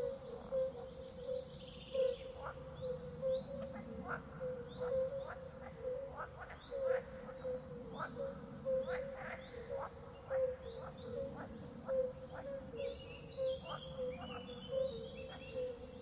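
Natural outdoor ambience of birds chirping and calling in short repeated notes, with a quick run of falling notes near the end. Underneath is a steady, pulsing low trill.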